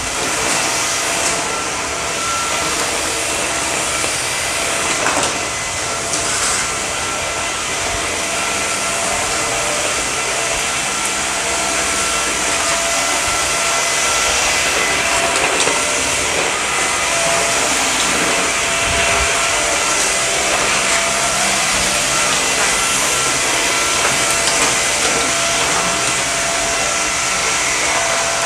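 Samsung Jet VS70 cordless stick vacuum running steadily, its motorized brush roll spinning, with a steady motor whine over the rush of air.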